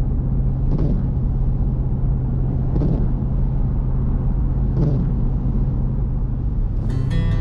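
Vehicle driving along the road: a steady rumble of engine and tyre noise with a low, even drone. Guitar music comes in near the end.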